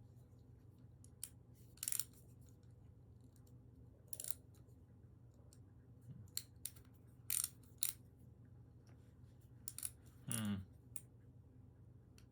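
Scattered small clicks and taps of a small Torx screwdriver working at the tiny screws in an out-the-front knife's handle, irregular with pauses between, as the screwdriver fails to work right at first.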